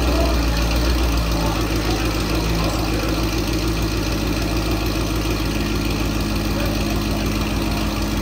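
Ford Mustang GT's 5.0 L Coyote V8 idling steadily through a Corsa Extreme cat-back exhaust with catless headers.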